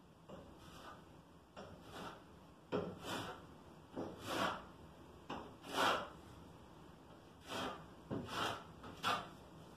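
Notched steel trowel scraping tile mortar on wallboard: about a dozen short, irregular scraping strokes, some starting with a sharp scrape, as the mortar is worked and combed.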